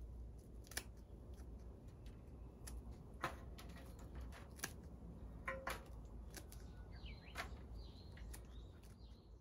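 Pruning shears snipping through the stems of a potted marguerite: faint, irregular sharp snips, roughly one a second, some in quick pairs.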